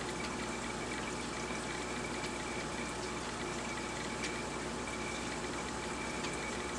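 Steady running and trickling water from a large aquarium's filtration, with a faint constant hum and a few small ticks.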